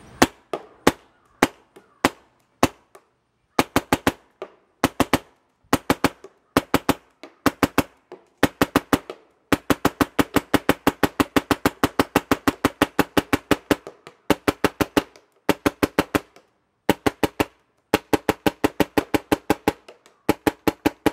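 Electronic Invert Mini paintball gun firing on compressed air: single shots and short strings of three to six, with a long fast string of about nine shots a second in the middle. Each shot is a sharp pop.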